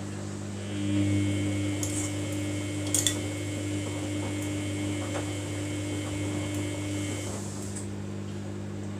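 Samsung washing machine running in service mode: a steady low hum, joined by a higher steady whine from about a second in until about seven seconds in, with two sharp clicks near three seconds.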